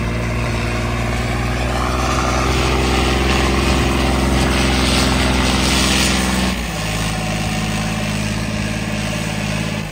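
John Deere 5105 tractor's three-cylinder diesel engine running steadily. It gets a little louder about two seconds in, then drops to a lower, quieter note about six and a half seconds in as the revs fall.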